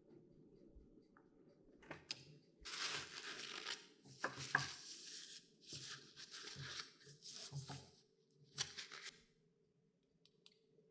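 A run of rasping, tearing-like bursts for about five seconds, with a few sharp clicks before and after.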